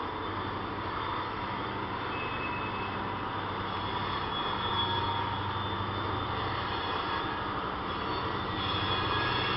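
Diesel locomotive engine running with a steady low drone as a train approaches, growing slightly louder near the end.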